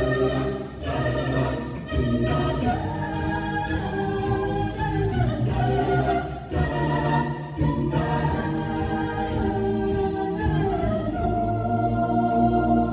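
High school a cappella group singing sustained, shifting chords with no clear words.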